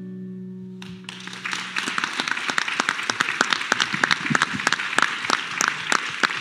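The last chord of an acoustic guitar rings and fades out. About a second in, audience applause starts and carries on, a dense patter of many hands clapping.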